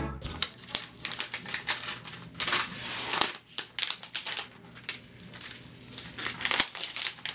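Crinkling and rustling of the plastic wrapping around a new iPad as it is unwrapped and handled, with scattered small clicks and a louder stretch of crinkling about two and a half to three seconds in.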